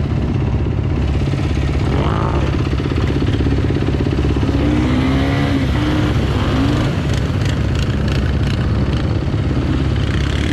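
Off-road vehicle engine running steadily with little change in revs.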